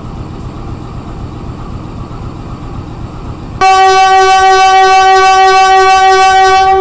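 Diesel locomotive horn sounding one long, steady blast. It starts suddenly about three and a half seconds in, over a low rumble, and lasts about three seconds.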